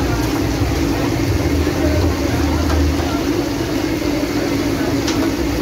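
Chicken pieces deep-frying in a large karahi of bubbling oil, a steady loud sizzle over a low continuous rumble. A single short tick near the end.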